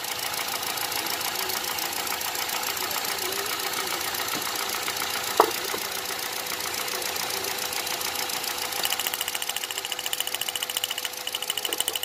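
Hyundai i10's four-cylinder Kappa petrol engine idling hot and rough, misfiring on cylinder No. 2. A single sharp click comes about five seconds in, and a fast, even ticking joins in from about nine seconds.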